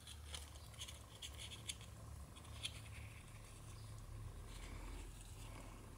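Faint handling noises of cardstock: fingers pressing and shifting a small die-cut paper hot air balloon and its glued paper box basket, with scattered soft ticks and scrapes, mostly in the first three seconds, over a low steady hum.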